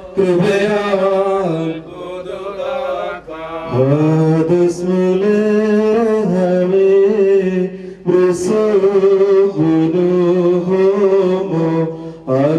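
Male clergy chanting a funeral hymn in slow phrases of long held notes, with short breaks between phrases and a quieter passage about two seconds in.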